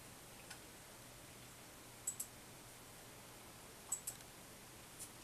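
A few short, sharp clicks at irregular spacing, two of them in quick pairs, over quiet room tone.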